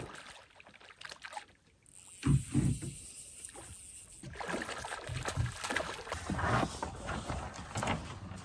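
Water lapping and sloshing against a small boat's hull, with a few loud low thumps a little over two seconds in.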